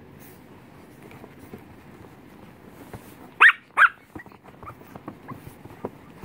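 Young puppy giving two short, sharp, high-pitched yaps in quick succession about three and a half seconds in, over a soft rustling of fabric as she squirms on a blanket.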